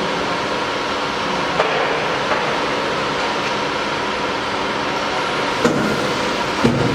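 Horizontal liquid silicone injection moulding machine running: a steady mechanical hum with a faint whine, and a few light knocks, two of them near the end.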